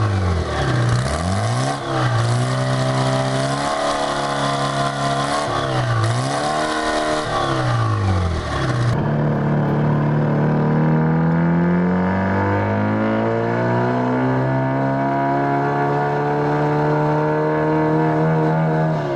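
Detroit Diesel 4-53 two-stroke four-cylinder diesel being revved up and let fall back several times. Then, in a second recording, it pulls under load with its pitch rising slowly and steadily.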